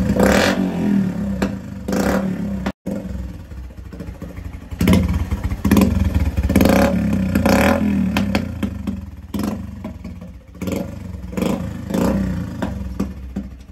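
Bajaj Platina motorcycle's single-cylinder four-stroke engine being revved in repeated throttle blips, about one a second, through an open aftermarket exhaust with no baffle mesh inside. It is very loud.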